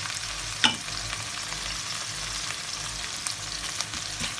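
Chopped onions sizzling in hot oil in a wok, with a steady hiss, while a wooden spoon stirs them with scattered light knocks and scrapes. One louder knock comes under a second in.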